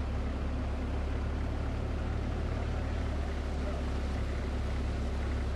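A small boat's motor running steadily, a low drone with a hiss of water and air over it as the boat moves through floodwater.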